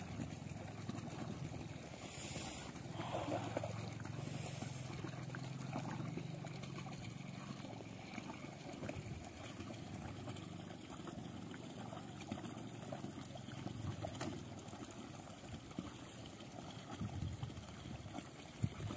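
A small stream of water trickling and splashing into a pond, a steady faint wash.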